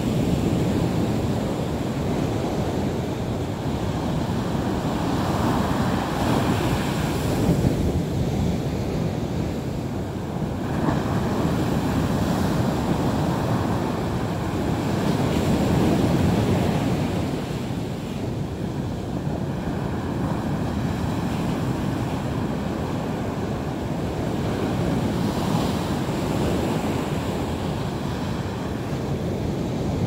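Sea waves breaking on the shore: a continuous wash of surf that swells and eases every few seconds.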